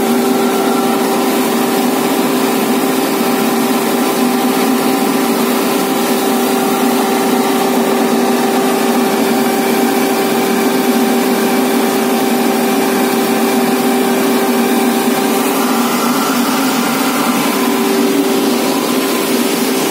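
Plastic pelletizing line running: a loud, steady machine hum made of several held tones, with no break or change in speed.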